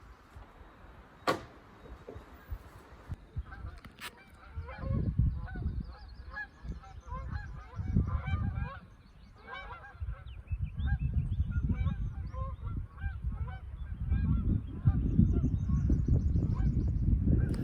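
Geese honking: many short calls overlapping one another, starting about four seconds in, over a low rumble.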